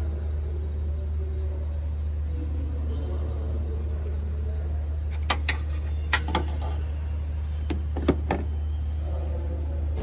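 Toyota Yaris engine idling with a steady low hum, its drive belt running on a newly replaced tensioner. About seven sharp clicks come in the middle.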